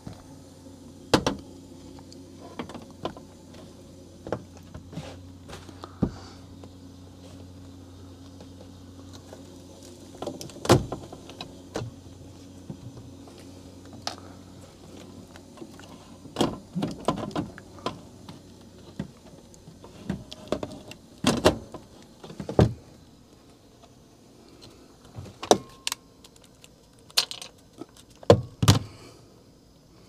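Sheet-metal access panel of an HVAC air handler being handled and fitted back on, with scattered clanks, knocks and clicks, busiest in the second half. A steady low hum stops about halfway through.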